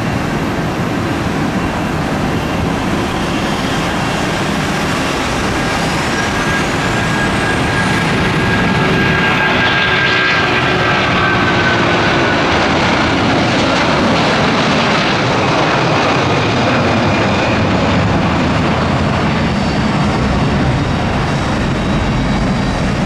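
Airbus A330-300 jet engines at takeoff thrust as the airliner speeds down the runway, lifts off and climbs away. The roar grows louder about eight seconds in as the jet comes past, with a high whine that rises in pitch over the rumble.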